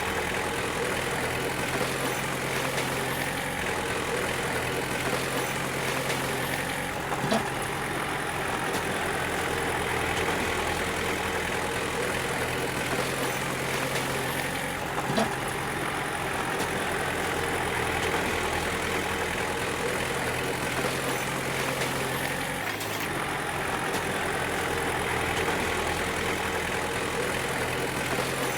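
Bulldozer's diesel engine running steadily, with two sharp metallic knocks about seven and fifteen seconds in.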